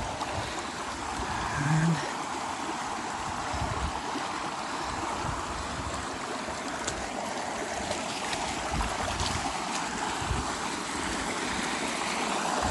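Mountain creek water running steadily, with a few soft low knocks scattered through it.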